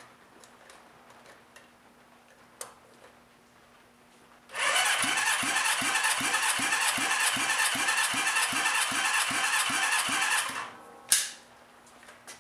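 Honda CB550 four-cylinder engine being cranked over for about six seconds during a wet compression test, a steady whir with an even pulse a little under three times a second as the pistons come up on compression. The test shows low compression in the cylinder. A single sharp click follows about a second after the cranking stops.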